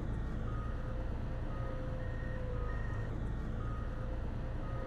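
Heavy equipment engine running with a steady low rumble and a faint wavering whine, while a reversing alarm beeps intermittently on two alternating pitches, about six short beeps.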